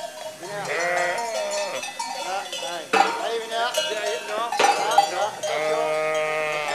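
A flock of sheep bleating, many overlapping calls with a long held bleat near the end, mixed with the clank of bells on the sheep's collars.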